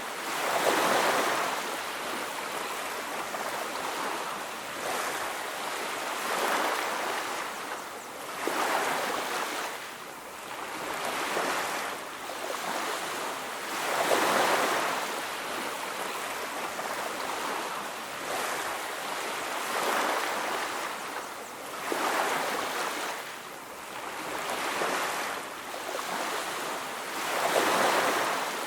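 Ocean surf on a beach: waves washing in and breaking one after another. Each wave is a swell of rushing noise that rises and fades every few seconds, over a steady hiss of water.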